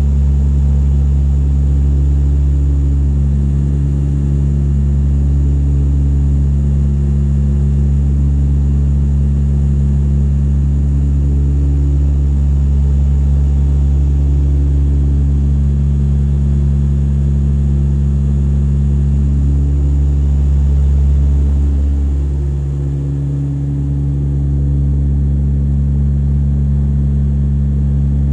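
Cabin drone of a de Havilland Canada Dash 8-100 in flight, heard from a seat beside the propeller: a steady low propeller hum with a throbbing beat as the tones of the two Pratt & Whitney Canada turboprops drift in and out of step, easing briefly about three-quarters of the way through.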